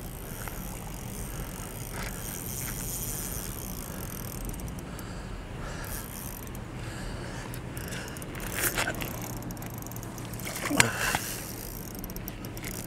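A large hooked trout splashing and thrashing at the water's surface close to the bank, over a steady low hum. Two short, louder sounds come about 9 and 11 seconds in.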